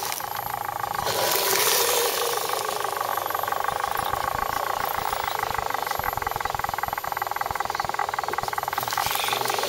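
Electric motor and gearbox of an RC scale crawler truck whining steadily as it crawls over tree roots. A short burst of rustling hiss comes about a second in and again near the end.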